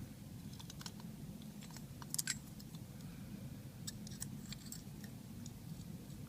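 Small metal parts of a key-in-knob door knob clicking and scraping as the lock core and housing are handled and worked loose, with a short cluster of louder clicks a little after two seconds in.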